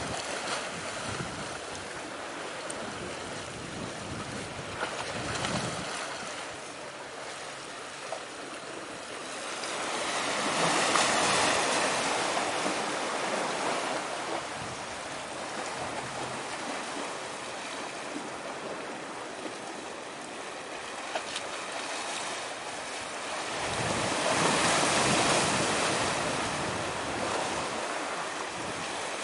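Sea surf washing, a steady hiss that swells up twice, about ten seconds in and again later.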